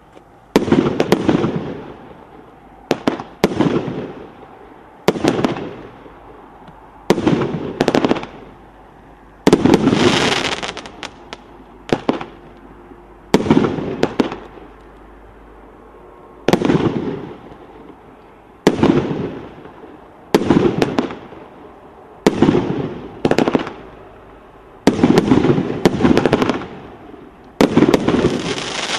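Multi-shot consumer firework battery (salute cake) firing its shells one after another, a sharp bang every one to two seconds and sometimes two in quick succession. Each bang trails off in a fading crackle, with a longer, brighter crackling tail about ten seconds in and again near the end.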